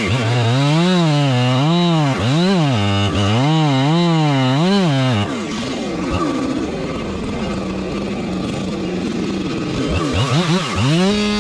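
Husqvarna 592XP two-stroke chainsaw cutting into a big oak trunk. For about five seconds its engine speed rises and drops over and over as the bar loads in the cut, then it runs steadier and lower, and the rise and fall starts again near the end.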